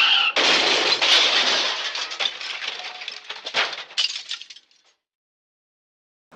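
The MGM elephant smash sound effect: a screech is cut off just after the start by a loud crash of breaking glass and debris. Tinkling and clattering pieces follow and fade out over about four seconds. Then there is silence.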